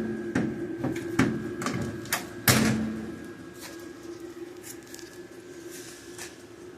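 Several knocks and clunks from handling sheet-metal body parts, the loudest about two and a half seconds in with a brief ring, then a steady low hum of room tone.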